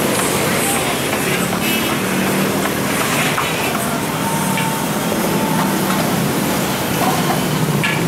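Steady street din of passing traffic with a low engine hum, and a few faint knocks from dough being handled on a wooden board.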